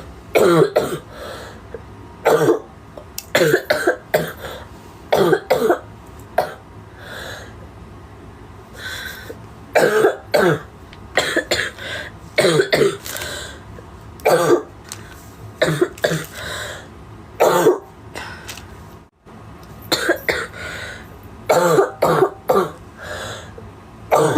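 A girl coughing over and over, single coughs and short runs of two or three about every second or two, with some throat clearing between them.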